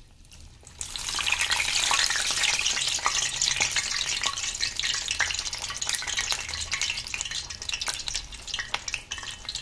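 Potato-and-methi gram-flour fritter (sharla) deep-frying in hot oil in a kadhai: a loud sizzle full of crackles that starts about a second in as the mixture slides off a water-dampened spoon, then slowly dies down. The water on the spoon makes the oil spit.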